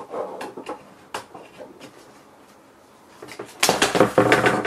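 A screwdriver clicks against the panel, and there are a few light knocks. Near the end comes about a second of loud metallic clattering and rattling as the thin sheet-metal back cover of the LCD panel is pressed and pried loose from its frame.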